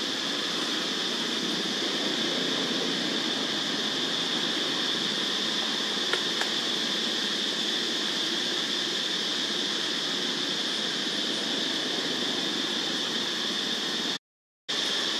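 Steady forest background: an even hiss with a constant high-pitched drone, broken by a brief dropout to silence near the end.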